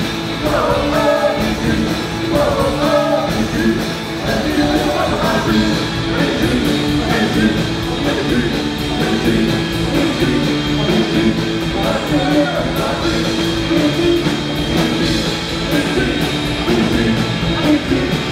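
Rock band playing live: electric guitars, bass guitar and drum kit, with a sung lead vocal over them.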